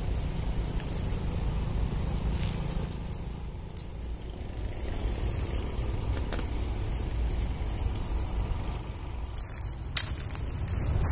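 Outdoor woodland ambience: a steady low rumble with faint bird chirps, and scattered light clicks and leaf rustles as tree branches are handled. A sharp click comes about ten seconds in.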